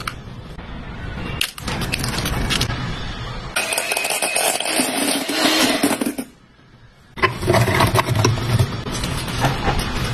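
Pancake-making kitchen sounds in several short cut-together clips, each a steady noisy sound that starts and stops abruptly, with a brief quieter gap a little past halfway.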